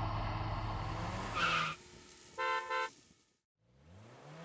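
A steady low engine hum fades out, then a car horn toots twice in quick succession. After a moment of silence, an engine starts revving up, rising in pitch near the end.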